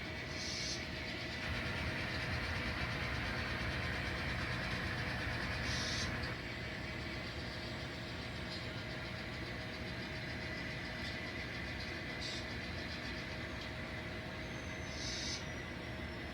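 N scale model locomotive running on the layout during switching moves: a steady mechanical hum with a fixed tone, a little louder for a few seconds near the start, and four brief high hisses spread through it.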